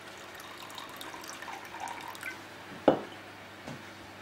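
Water poured from a glass bottle into a stainless steel saucepan, trickling and dripping. About three seconds in there is a sharp knock, as the glass bottle is set down on the wooden worktop, with a lighter tap just after.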